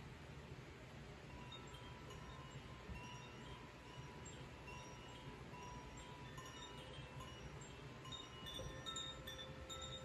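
Hand-held bamboo tube chime swayed gently, its tuned rods tinkling in scattered soft ringing notes at several pitches that begin about a second in. Near the end a steady low tone from a crystal singing bowl joins and keeps sounding.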